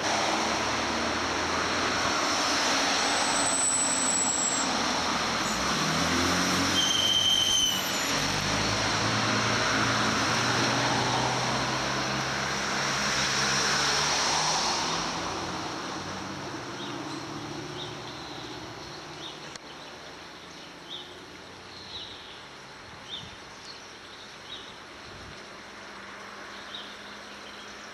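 Train running with a steady rumble and short high wheel squeals a few seconds in. About halfway through it gives way to quieter street traffic noise with a few light clicks.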